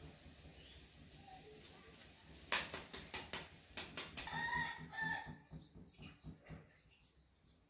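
A rooster crowing once, about four seconds in, after a few sharp clicks.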